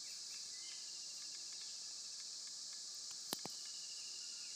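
Steady high-pitched chorus of insects, with a few faint chirps over it and one sharp click about three seconds in.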